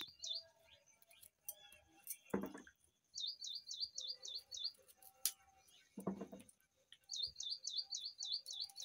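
A songbird repeats a phrase of quick, high chirps three times, about four seconds apart. Two short thuds come between the phrases.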